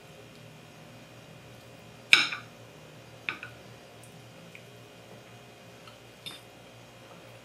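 A knife and fork clinking against a plate while cutting a cooked chicken breast: one sharp clink about two seconds in, and lighter clinks a second later and near the end.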